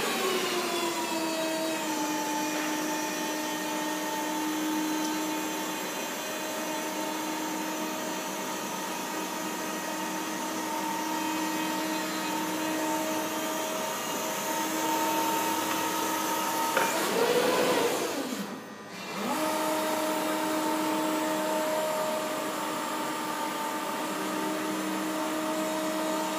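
Forklift hydraulic pump whining steadily as it powers a rotator attachment turning the forks. The whine settles to a lower, even pitch in the first couple of seconds. About seventeen seconds in it rises briefly, cuts out for a moment, then starts again.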